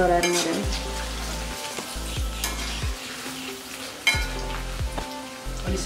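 Paneer frying in hot oil in a wok, sizzling steadily, with a short sharp knock about four seconds in.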